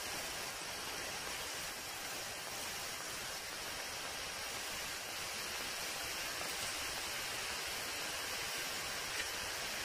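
Steady, even hiss with no distinct sounds in it, apart from one faint tick near the end.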